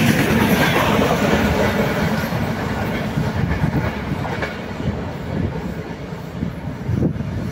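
Indian Railways express train rolling past as its last car goes by, then fading steadily as the train runs off into the distance, its higher hiss dying away first.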